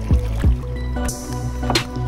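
Electronic background music: sustained bass and synth notes, with short falling low blips and a bright cymbal-like hit near the end.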